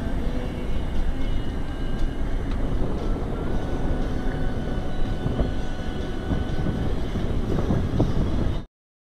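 Car driving: a steady rumble of engine and road noise that cuts off abruptly near the end.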